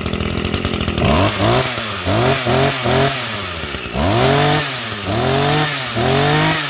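Echo two-stroke brush cutter engine idling, then blipped on the throttle. About a second in comes a quick series of short revs, then three longer revs that each rise and fall back. The seller calls it quiet and very smooth running.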